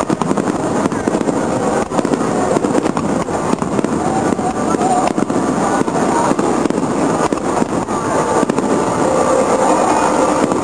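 Fireworks display: aerial shells bursting one after another, a continuous rumble of booms with many sharp cracks and crackles through it.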